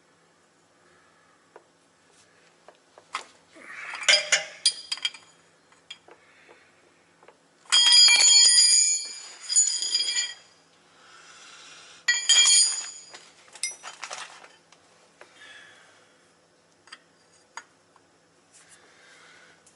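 Metal hand tools and parts clinking and knocking against metal, with two bouts of bright metallic ringing, about eight and twelve seconds in, between scattered clicks.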